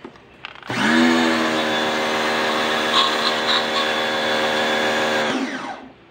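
Black & Decker BW15 electric pressure washer motor and pump starting up about a second in, pitch rising quickly to a steady run while the water jet sprays, then winding down and stopping near the end. The motor stopping with the spray is the work of its automatic pressure switch.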